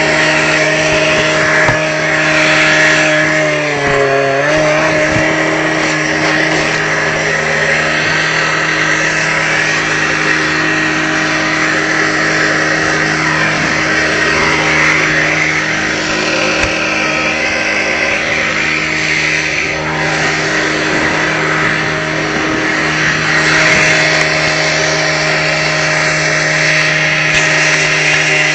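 A small engine running steadily with a constant low hum. Its pitch sags briefly about four seconds in and again near the end, as if taking a load, under a rough, noisy layer.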